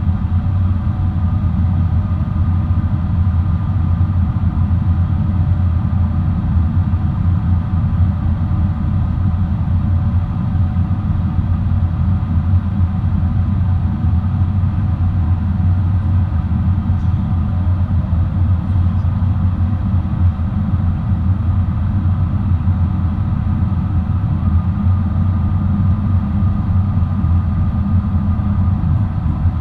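Steady low drone of a Boeing 777-300 airliner in flight, with a faint steady whine riding over it.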